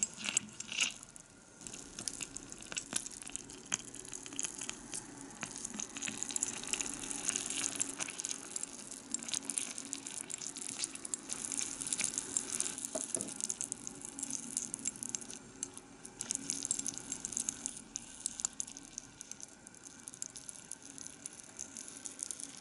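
Tiny meatballs simmering in a reddish sauce in a miniature ceramic saucepan, giving a steady fine sizzling crackle with small pops. A small spoon clicks and scrapes in the pan during the first second or so.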